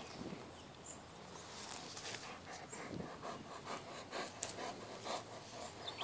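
A black dog panting close to the microphone, a fast, even run of short breaths that begins about two seconds in.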